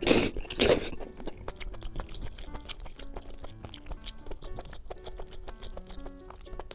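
Two loud bites in the first second, then close-up chewing with small wet clicks from the mouth. Soft background music plays throughout.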